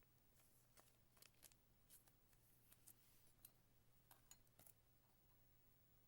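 Near silence over a faint steady hum, with light, scattered clicks and rustles through the first five seconds from baseball cards being handled and sorted.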